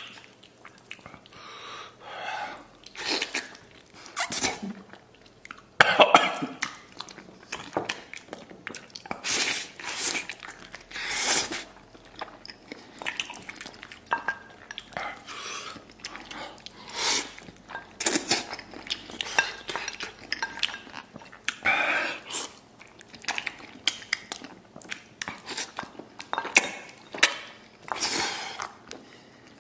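Someone eating spicy rice noodles and braised pig's trotter with chopsticks: loud hissing slurps and sharp breaths every second or two, with wet chewing in between.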